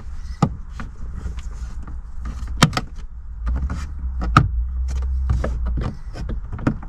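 Scattered plastic clicks and knocks as a small trim cover by a Mini Clubman's rear-view mirror is pried at with a tool, with a low rumble of handling for a couple of seconds in the middle.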